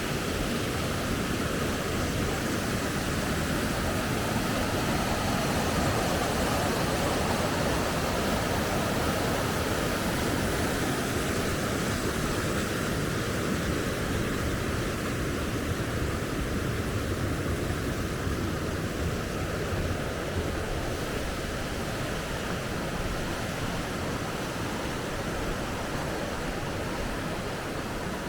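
Mountain stream rushing over rocks in a steady roar, its flow raised by a night of rain.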